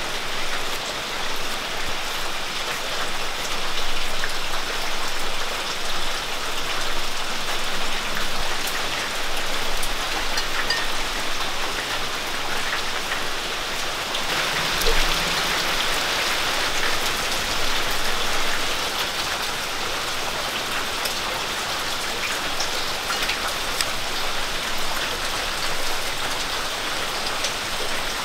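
Steady rain falling, a continuous even hiss, with occasional faint taps of a knife chopping jackfruit seeds and core.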